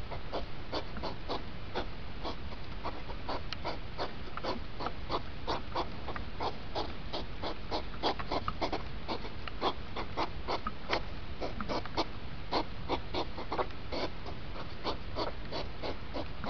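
Hedgehogs snorting and huffing in the courtship rut, played back speeded up so the puffs come as a rapid, irregular chatter of short sounds, several a second.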